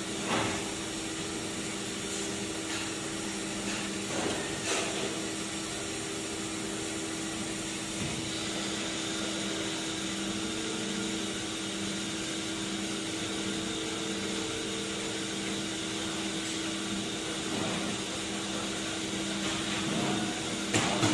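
Injection moulding machine running with a steady hum and hiss, broken by a few short knocks and a louder clatter near the end.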